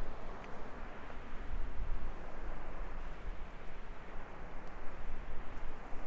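Ocean surf rushing steadily, with a deep rumble underneath that swells and fades unevenly.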